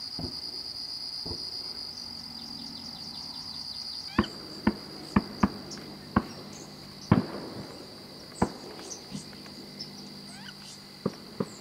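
Crickets trilling steadily, with a scatter of sharp, distant shotgun shots, about seven of them, starting about four seconds in and two fainter ones near the end.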